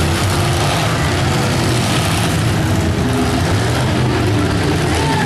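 Demolition derby cars' engines running and revving together in a loud, steady din.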